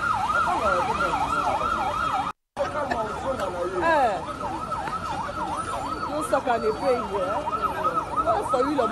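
Siren yelping, its pitch swinging up and down about three times a second, with lower sweeping tones beneath it. The sound cuts out completely for a moment about two and a half seconds in.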